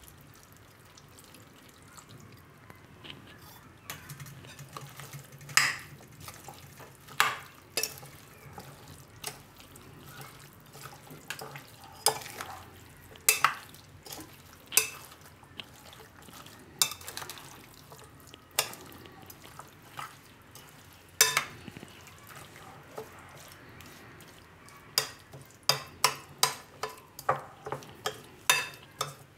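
Steel spoon stirring chopped mango, garlic and oily pickle masala in a glass bowl, knocking and clinking against the glass every few seconds and in quick succession near the end.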